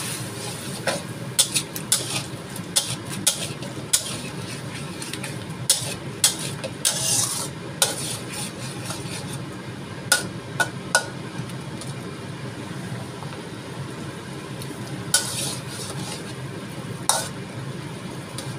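Metal spatula stirring and scraping in a wok of simmering tomato and onion sauce, with irregular sharp clinks against the pan over a steady simmering hiss.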